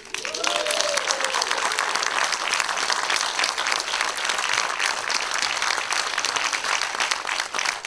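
Audience applauding steadily, with a brief cheer at the start.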